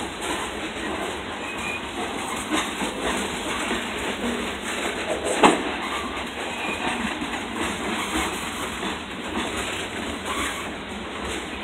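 CSX freight train's gondola cars rolling past on the rails, a steady rumble with the clatter of wheels over the track. One sharp knock stands out about five and a half seconds in.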